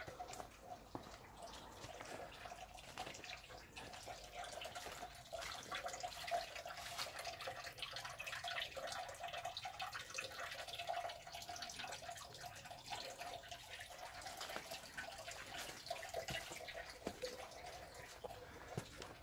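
Water trickling and dripping into a stone spring basin, an irregular patter of small drips, loudest in the middle.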